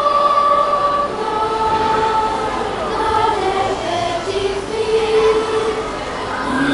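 Youth choir singing unaccompanied in several parts, holding long notes that move to new pitches every second or so.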